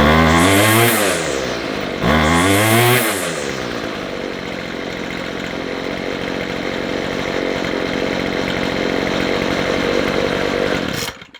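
McCulloch two-stroke strimmer engine revved to full throttle twice, each rev rising and falling back, then idling steadily until it cuts out near the end. Its carburettor's low- and high-speed screws have just been turned out to richen the mixture, a stopgap for what the owner takes for a hardened carburettor diaphragm.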